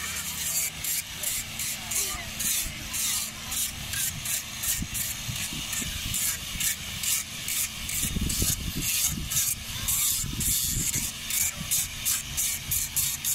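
Hand abrading of a wooden carving: rapid back-and-forth rasping scrapes, about three strokes a second, kept up steadily.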